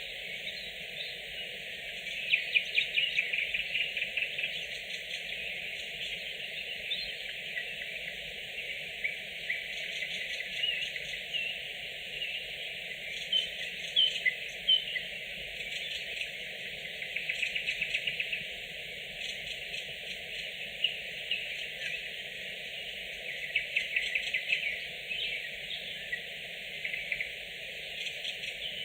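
Nightingales singing: bursts of rapid repeated notes and trills every few seconds, over a steady background of more distant song.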